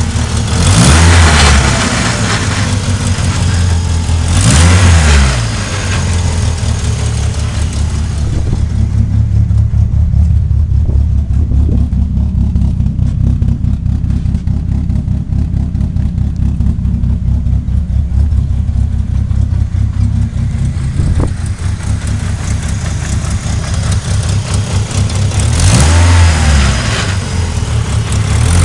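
Vehicle engine idling steadily, revved up and back down three times: about a second in, around four seconds in, and near the end. A grinding noise from the transmission is what this is meant to show, and the owner wonders whether the transmission is low on oil.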